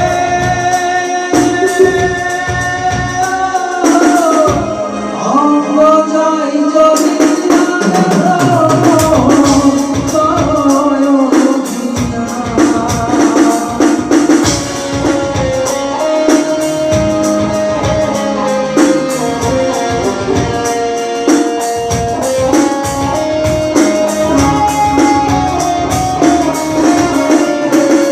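Instrumental music: an electronic keyboard plays the song's melody in sustained and gliding notes over a steady rhythmic accompaniment with percussion.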